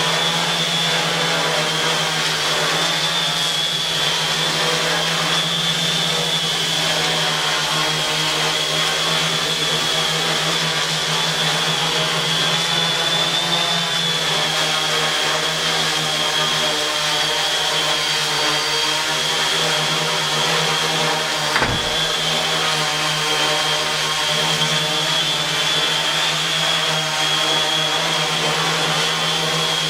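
Custom quadcopter's electric motors and propellers running steadily as it hovers holding position: a constant buzz with a high motor whine that wavers slightly. A single brief knock about two-thirds of the way through.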